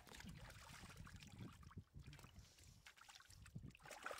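Faint sloshing and trickling of shallow water, with a few small knocks.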